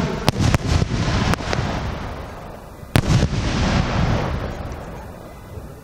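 Aerial firework shells bursting: a run of sharp bangs in the first second and a half, then the loudest bang about three seconds in, each followed by an echo that rolls on and fades out.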